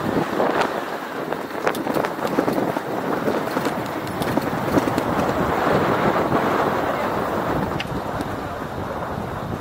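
Riding noise from a moving bicycle: a steady rush of wind and rolling noise on the microphone, with scattered sharp clicks and knocks.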